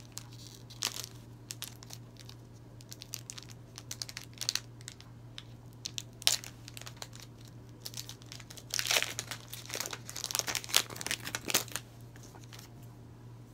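Foil Pokémon booster-pack wrapper crinkling and crackling as it is worked and torn open by hand, with scattered crackles, a sharp one about six seconds in and a dense flurry from about nine to twelve seconds.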